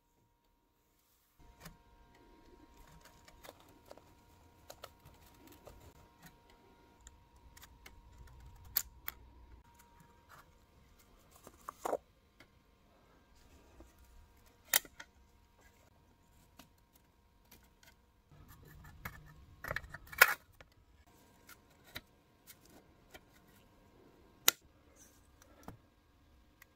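Rusty sheet-metal parts of a vintage Eveready torch lantern being handled and turned over: soft rattling and scraping, broken by a few sharp metallic clicks and knocks, the loudest about twenty seconds in.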